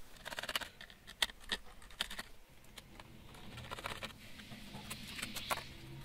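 Small screwdriver undoing the screws on a laptop's plastic bottom cover: a quick run of light clicks, then scattered clicks and scraping.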